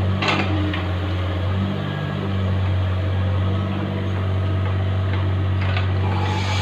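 Mini excavator's diesel engine running steadily under load as the arm works, with a brief knock just after the start.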